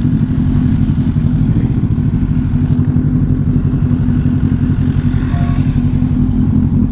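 Kawasaki Z800's inline-four engine idling steadily at close range while the bike is ridden slowly through a car park.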